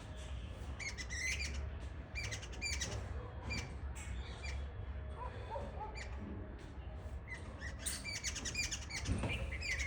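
Birds chirping: many short, high calls in quick runs, with a few lower calls near the middle, over a steady low rumble.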